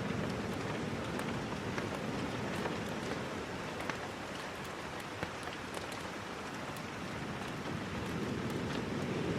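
Steady rain falling, with scattered sharp little ticks of drops throughout.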